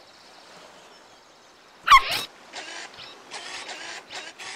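Cartoon sound effects: a short, loud wobbling tone about two seconds in, then a string of short hissy bursts at roughly two a second.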